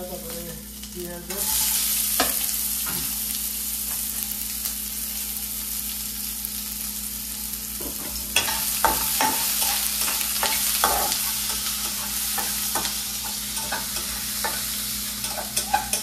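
Chopped onion dropped into hot mustard oil in a steel pan, starting a loud steady sizzle about a second in. Through the second half a metal spatula stirs the onions, scraping and knocking against the pan as they fry.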